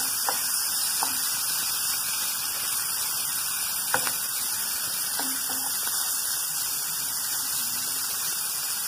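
Diced bacon sizzling steadily in a little oil in a nonstick frying pan as it renders its fat, with a few sharp taps of a spatula against the pan near the start and about four seconds in.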